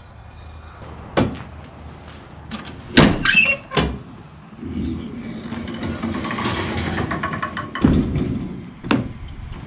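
Rear ramp door of an enclosed cargo trailer being unlatched and lowered: sharp metal latch clacks about one, three and four seconds in, a steady noise for about three seconds as the ramp swings down, then a thump as it lands, about eight seconds in.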